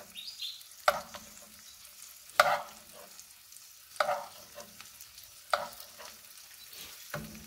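Metal spoon knocking and scraping against a frying pan about every second and a half as melted butter is spooned over a frying egg, with the butter sizzling faintly underneath.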